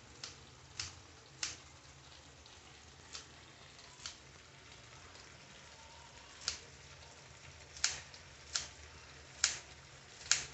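Kitchen scissors snipping fresh coriander leaves, about ten crisp snips at uneven intervals, each a short sharp click of the blades closing.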